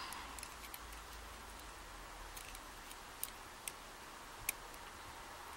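A few faint, scattered metal clicks and ticks as a tool works at a stuck pin and spring in a Yale 5-pin rim cylinder, with a few sharper clicks in the second half.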